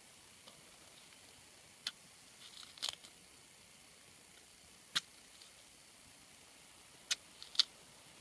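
A few sharp light clicks and taps, about five over several seconds, over a steady faint hiss: hands handling watermelon bait among leaves, and a knife cutting watermelon rind on the ground near the end.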